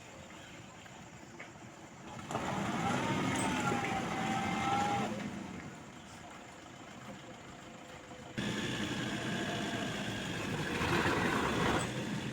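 Truck engine revving hard twice, each burst lasting about three seconds with a wavering pitch, over a steady running engine.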